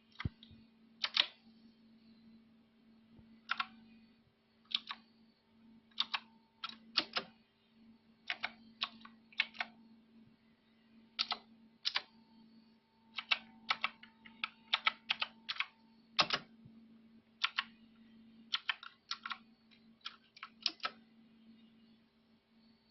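Keys of a blue-switch mechanical keyboard pressed at an irregular, unhurried pace, each stroke a sharp click, sometimes alone and sometimes in quick runs of a few, over a faint steady hum.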